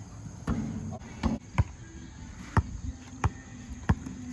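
A basketball being dribbled on a concrete driveway: about six sharp bounces, settling into roughly one every two-thirds of a second.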